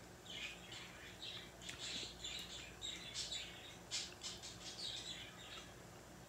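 Close-up chewing of a mouthful of honeycomb with the mouth closed: soft wet smacks and sticky clicks of the comb and wax in irregular short bursts, with a quick run of clicks about four seconds in.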